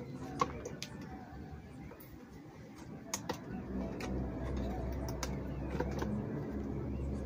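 Thin plastic bottle being cut with a small knife, the plastic giving scattered sharp clicks and crackles. About halfway in, a low steady hum comes in underneath.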